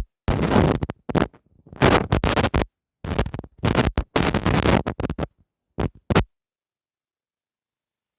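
Loud scratching and rubbing noise in irregular bursts, as if something is scraped or handled right against the microphone, stopping abruptly a little over six seconds in.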